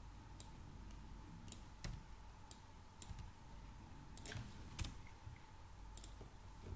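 Computer keyboard keys clicking in sparse, irregular keystrokes as code is edited, a few of them louder around the middle, over a faint steady hum.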